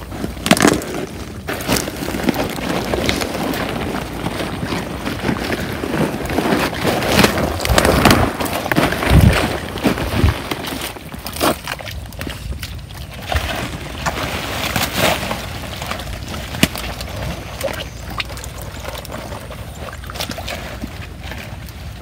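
Hands digging and scooping through wet mud and shallow muddy water, feeling for fish, with irregular squelches and splashes. It is busiest in the first half and thins out later.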